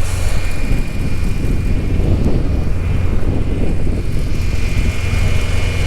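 Idling diesel semi-truck engines: a steady low rumble, with a thin steady high tone over it.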